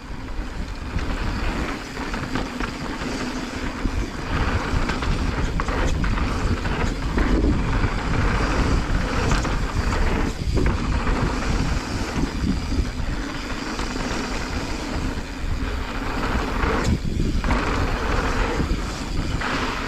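Mountain bike riding down a dusty dirt trail: steady wind rumble on the microphone over the clatter of tyres and the bike on rough ground.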